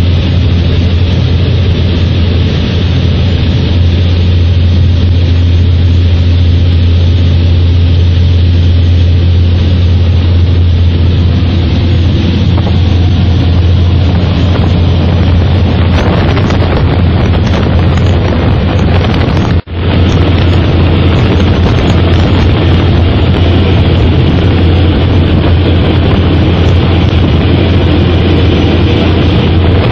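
Steady, loud drone of an aircraft's engines and propellers heard inside the cabin, with a deep low hum under a rushing noise. It cuts out for a split second about two-thirds of the way through.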